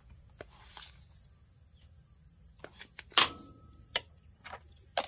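A few short clicks and knocks from a metal spoon, a plastic tub and a wooden mortar being handled as seasoning is spooned into the mortar. It is quiet at first, then comes a run of sharp clicks from a little past halfway, the loudest about three seconds in.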